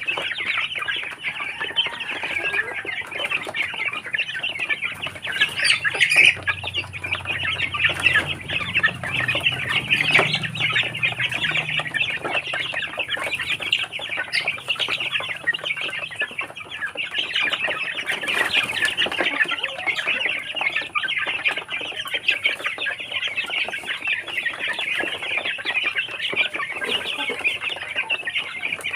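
A flock of young Barred Plymouth Rock chickens peeping and clucking continuously, many birds calling at once while they feed.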